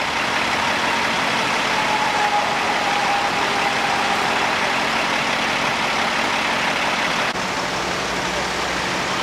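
Engine idling steadily under a constant hiss of noise; about seven seconds in the sound shifts to a deeper steady hum.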